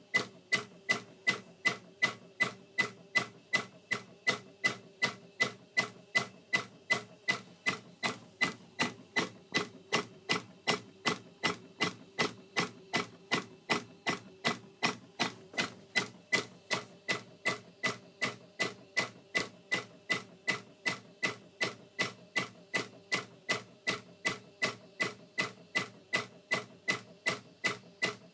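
Chlorine dosing pump knocking in an even rhythm, about two to three sharp clicks a second, each with a brief ringing tone; the uploader takes the knocking for a sign that the pump is malfunctioning.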